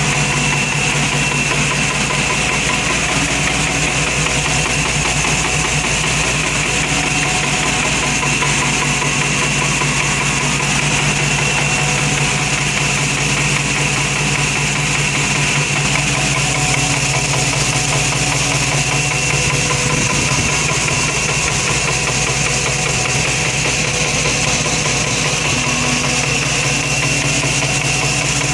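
Engine idling steadily with a ticking noise.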